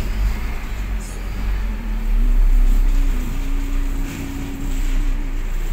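UD Croner garbage truck's diesel engine running, its note rising and falling a little.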